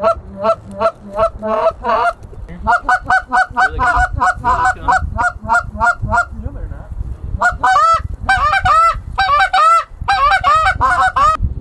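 Hand-blown Canada goose calls working passing geese: a fast run of short clucks, about four or five a second, then after a brief pause louder, longer honks that rise and fall in pitch.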